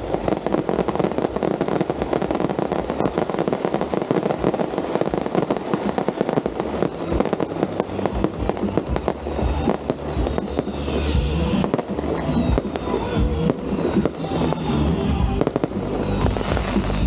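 Fireworks and firecrackers going off in a dense, rapid crackle of bangs. Loud music with a beat grows beneath them through the second half.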